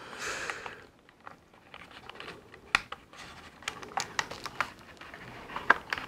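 Hard plastic parts of a Hasbro Vintage Collection Tatooine Skiff toy being handled and pressed into place: scattered light clicks and taps, the sharpest a little under three seconds in and again near the end.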